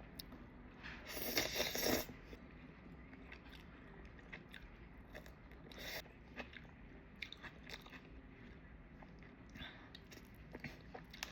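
A person eating jjajang ramyeon noodles: quiet chewing and mouth noises, with a louder noisy burst about a second in, another shorter one around six seconds, and scattered small clicks.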